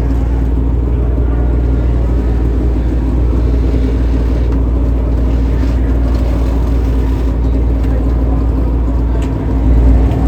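NASCAR Cup Series stock cars' V8 engines running as the field laps the track, a steady low drone. It dips briefly near the end, then swells louder.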